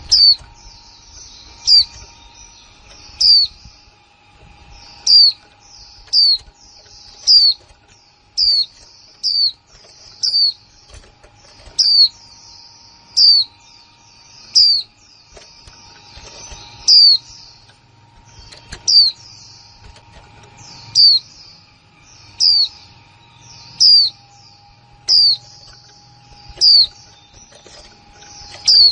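Female white-eye giving its sharp 'kick' call over and over, about one call every second and a half. Each call is a quick high note sweeping downward, over faint twittering from other caged white-eyes.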